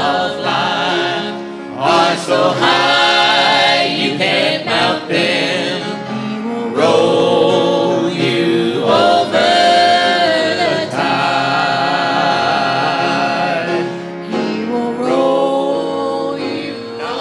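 A trio of two men and a woman singing a gospel song together in harmony into handheld microphones, with long held notes.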